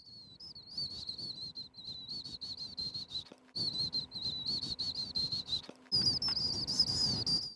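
Crickets imitated by a simple human vocalization: a high, rapidly pulsing trill held around one pitch, broken twice by short gaps.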